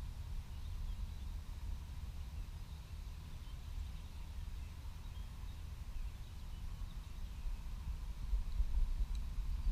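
Outdoor ambience: a low rumble with a few faint high chirps, likely distant birds. The rumble grows louder near the end.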